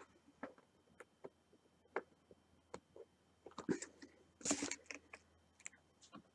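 Small clicks and taps of tweezers picking diamond-painting drills from a plastic tray and setting them onto the design, with a denser run of rattling clicks about three and a half to five seconds in.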